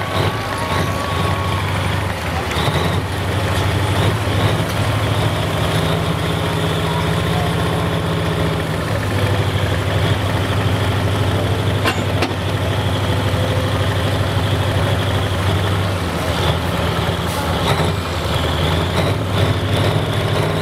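Big diesel engine of a pulling semi truck running at idle after its pull, a steady deep hum that shifts slightly a couple of times.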